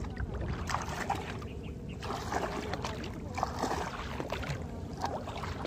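Shallow water splashing and sloshing as a person wades through it, with uneven splashes from the steps.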